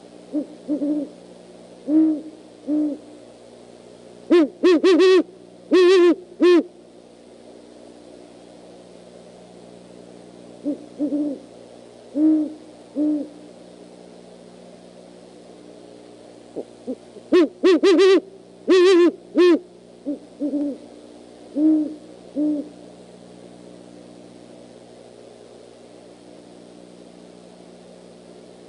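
Great horned owls hooting back and forth in short series of deep hoots. Two runs, about five and eighteen seconds in, are much louder and harsher than the rest.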